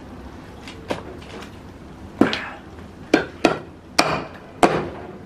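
A heavy wood-chopping knife hacking into a rack of raw beef bones on a cutting board: about six sharp chops at an uneven pace, coming quicker in the second half.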